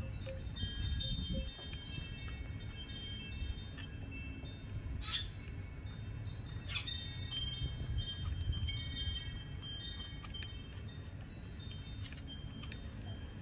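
High chimes ringing at several pitches, overlapping and fading, over a low rumble, with a few sharp clicks about 5, 7 and 12 seconds in.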